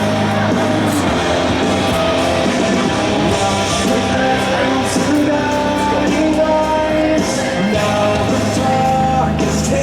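Rock music with singing and guitars.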